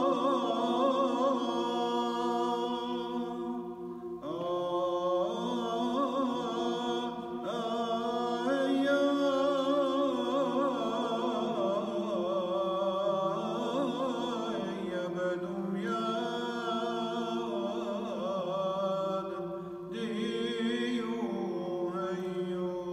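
A single male voice chanting a Syriac madrasha hymn in Aramaic, unaccompanied, in long held phrases with wavering ornaments. It breaks off briefly between phrases about four, seven and twenty seconds in.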